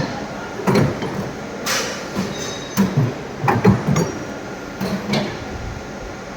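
Irregular metallic clanks and knocks, several with a brief high ring, over a steady machine hum, from a CNC pipe bending machine and the metal pipe being worked in it.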